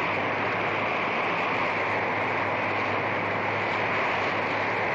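Storm wind blowing steadily, an unbroken rushing noise with no letup, over a faint low hum in the soundtrack.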